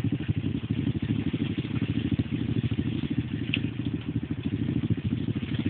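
ATV engine running steadily at low revs, a rapid even pulse with no revving.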